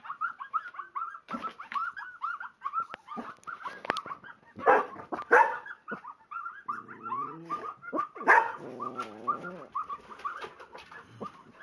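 Howling wolves played from a laptop's speakers, with a Kuvasz and Yorkshire terriers whining and barking in reaction. Quick high whines and yips run throughout, with a few loud barks around five and eight seconds in and a lower wavering howl from about seven to nine seconds.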